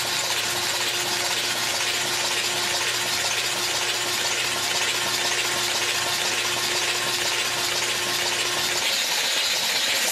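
Big-block Chevrolet 496 stroker being spun on a Simtester run-in stand without firing: a steady mechanical whir with a dense hiss of oil spraying from the engine. A low hum under it drops out near the end.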